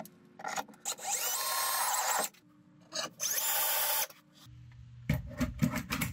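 Ryobi cordless drill driving two wood screws through a 3D-printed plastic mount into a wooden beam, each run lasting about a second. Near the end come several sharp clicks and knocks as a drill is clipped onto the mount.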